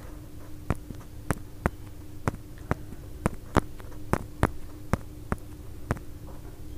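Fingertip taps on a smartphone touchscreen, short sharp clicks coming irregularly about two to three a second, over a steady low electrical hum.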